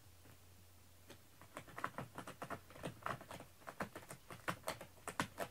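A cat at the base of its cat tree making irregular, crisp clicks and crackles, several a second, starting about a second and a half in.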